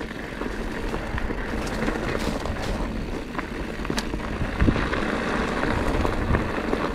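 Mountain bike rolling along a dirt trail: a steady rush of tyre and wind noise with scattered ticks and knocks as the bike goes over the ground.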